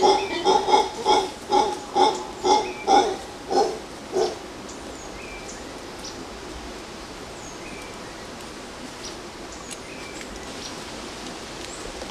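Mantled howler monkey calling: a rapid series of deep, pitched grunting barks, about three a second, that stop about four seconds in. Afterwards only faint high chirps over a steady forest hiss.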